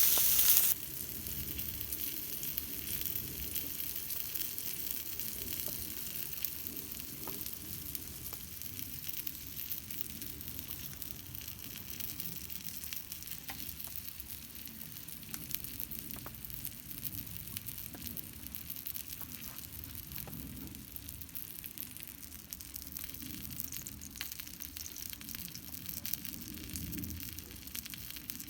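Steady rain hiss with a wood campfire crackling in scattered faint ticks. A louder hiss cuts off sharply under a second in.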